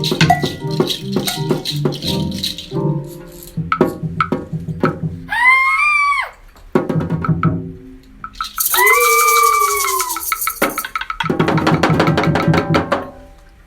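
Classroom hand percussion played as sound effects: shakers rattling among quick clicks and taps. Two pitched sounds glide up and then down, a short one about six seconds in and a longer one about nine seconds in. A stretch of fast, dense rattling comes near the end.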